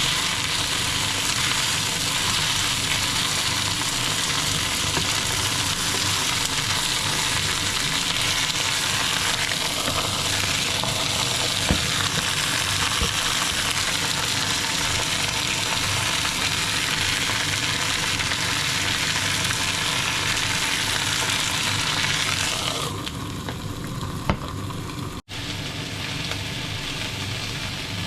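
Chicken and vegetables frying in a pan, sizzling steadily; the sizzle drops in level near the end.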